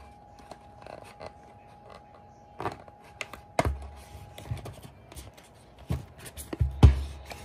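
Hands handling the cardboard box and card insert of a Munipals wooden subway-car toy: scattered taps, knocks and scraping rustles, few at first and more frequent near the end. A faint steady tone runs underneath.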